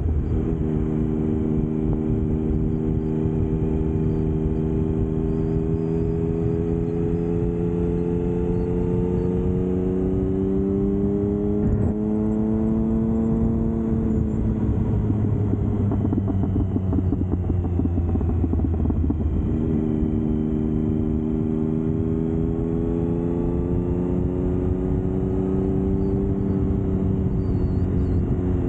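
Triumph Speed Triple's inline three-cylinder engine running steadily under way. Its note climbs slowly for about ten seconds, a short click sounds about twelve seconds in, the note then sags, and it steps up again around twenty seconds before climbing slowly once more.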